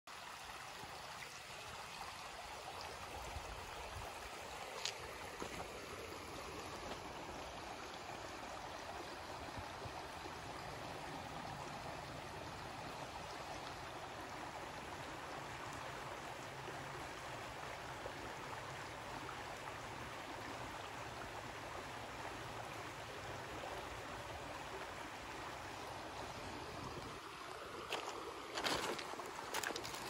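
Shallow woodland creek babbling steadily over a stony riffle. A few louder crunches come near the end.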